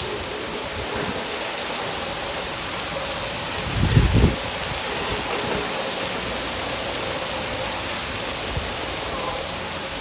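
Heavy rain falling, a steady dense hiss, with a brief low thump about four seconds in.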